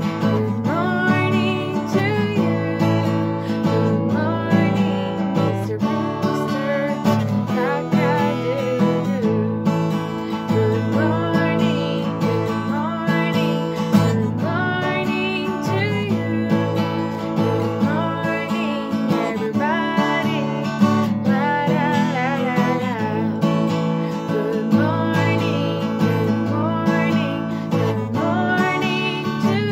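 A woman singing a children's song over a strummed acoustic guitar.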